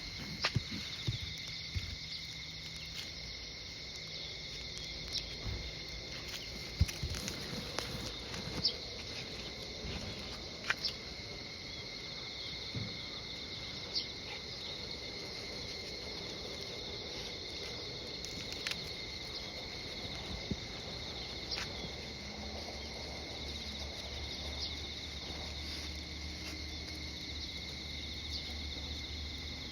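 Insects chirring steadily in two high-pitched bands, with scattered light clicks. About two-thirds of the way in, a low hum comes up underneath.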